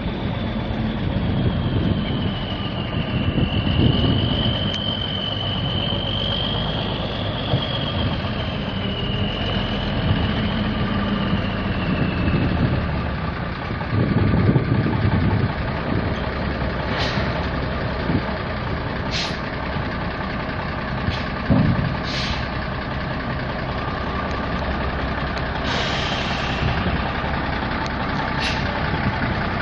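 Cummins N14 inline-six turbo diesel of a Peterbilt 379 dump truck idling steadily. A wavering high whine runs through the first dozen seconds, a few sharp clicks come later, and there is a short hiss near the end.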